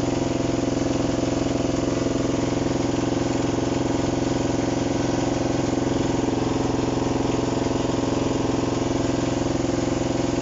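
Heavy-equipment diesel engine running steadily at a constant speed, with no change in pitch or level.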